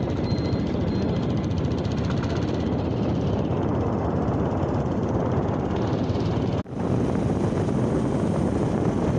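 Motorcycle riding at speed: a steady mix of engine and wind noise, breaking off for an instant about two-thirds of the way through before carrying on.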